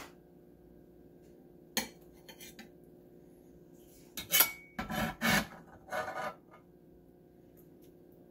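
Metal spatula scraping and tapping against the bottom of a Lodge cast iron casserole pan while a piece of casserole is lifted out: a sharp tap about two seconds in, then several louder scrapes around the middle.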